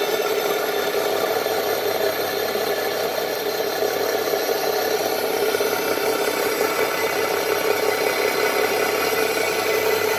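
Machine-shop machinery running steadily, a constant motor hum that holds one pitch without change.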